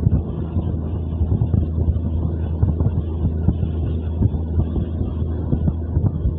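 Diesel passenger train running at speed, heard from on board: a steady low drone with irregular rattling and knocking from the running gear, and wind buffeting the microphone.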